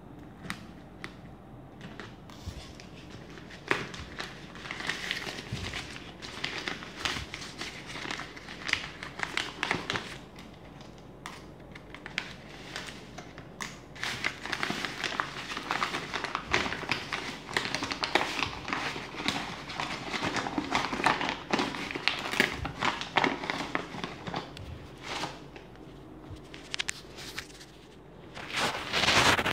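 A plastic courier mailer bag crinkling and crackling as it is handled and cut open with scissors, in irregular crackles and clicks that get busier in the second half and loudest near the end.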